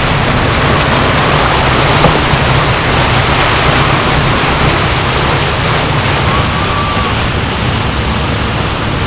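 Rushing, churning water of a motor fishing boat's wake streaming past the hull while the boat is under way, with a steady low drone underneath.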